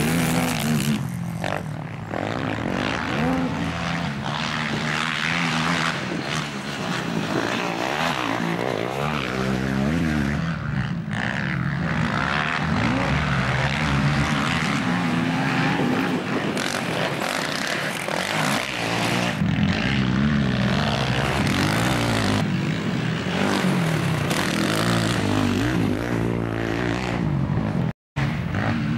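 Racing quad bike engines revving hard on a dirt track, their pitch rising and falling with throttle and gear changes. The sound breaks off sharply for a moment near the end.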